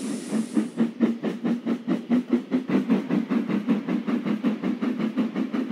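Steam locomotive hauling a train of coaches away: a quick, even rhythmic beat over a steady low rumble.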